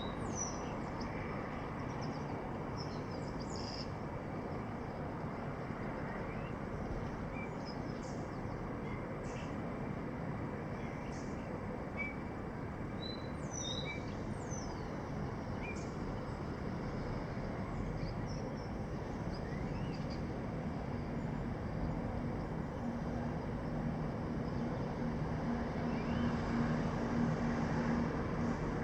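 Steady city background noise, a constant hiss and rumble, with birds chirping and whistling in short scattered calls. About two-thirds of the way in, a low steady hum joins and the noise grows a little louder.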